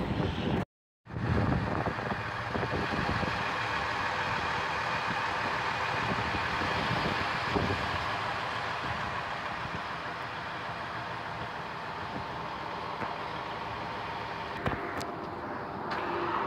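Diesel engine of a semi tractor-trailer running steadily with road noise as it passes on the highway. The sound cuts out completely for a moment about a second in.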